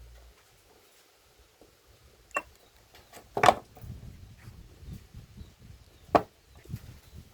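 A few separate sharp knocks or snaps: a light one about two seconds in, a loud one about three and a half seconds in, then another loud one and a weaker one near the end.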